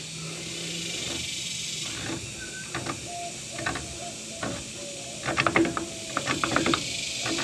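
Metal hand tool clicking and clinking on a brake caliper bolt as it is worked loose, with a quick run of clicks in the second half over a steady hiss.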